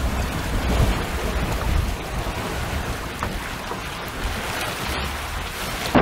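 Steady hiss of wind and water rushing past a sailboat under way in choppy water, with a low wind rumble on the microphone.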